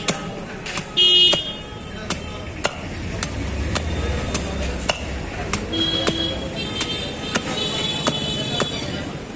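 Long curved blade chopping into the fibrous husk of a palmyra palm fruit, sharp knocks about every half second as the husk is pared off. A vehicle horn blares briefly about a second in, and more horn tones sound in the second half.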